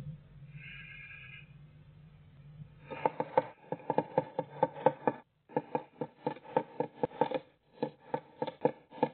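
Great tit scratching and shuffling on the wooden floor of a nest box while it works the nesting material: a fast run of dry scratchy ticks that starts about three seconds in and goes on with short pauses.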